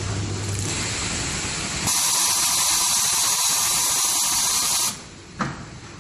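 High-frequency plastic welding and cutting machine running: a steady noise with a low hum, then about two seconds in a louder, high hissing buzz that lasts about three seconds and cuts off suddenly, followed by a single sharp click.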